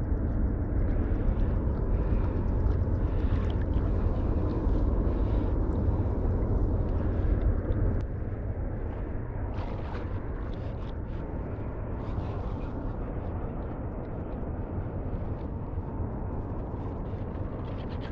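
Steady low rumble of wind on the microphone, with water swishing around the legs of someone wading through a shallow marsh. It eases about eight seconds in.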